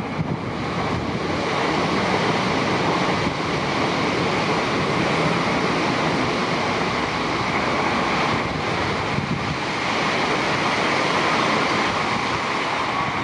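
Tohoku Shinkansen E5-series train coupled to an E6-series Komachi passing at speed: a loud, steady rush of air and rolling noise that builds over the first couple of seconds and eases a little near the end.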